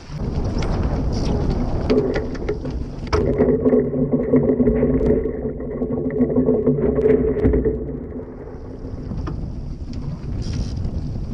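Wind rushing over the microphone on a foiling Mach2 Moth dinghy, with water noise and small knocks. From about two seconds in until near eight seconds a steady low hum sits under it, then fades.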